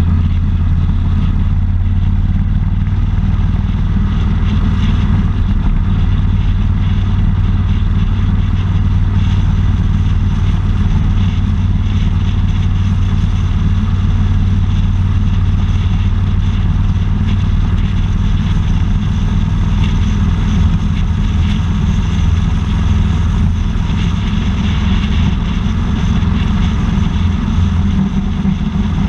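Steady low engine drone with road and wind noise, heard on board a vehicle cruising at highway speed.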